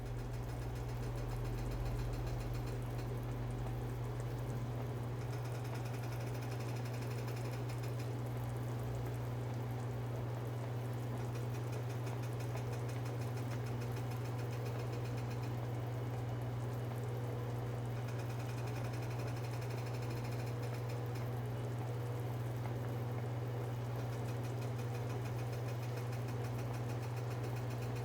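Pot of chicken thighs at a steady boil: continuous bubbling over a strong, steady low hum.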